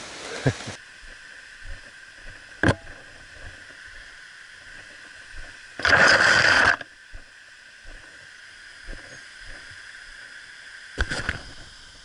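Leaves and branches brushing across the camera, loudest for about a second around six seconds in and again briefly near the end, with a few sharp clicks and knocks from walking a mountain bike along a dirt trail, over a steady background hiss.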